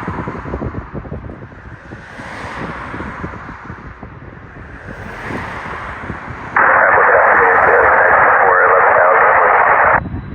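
Radio receiver hiss with a low rumble, the hiss swelling every few seconds. About two-thirds of the way in, a loud burst of narrow, tinny radio static starts abruptly as the channel opens, and it cuts off suddenly shortly before the end.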